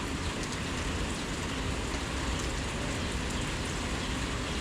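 Heavy rain falling steadily: an even hiss with a low rumble underneath and faint scattered drop ticks.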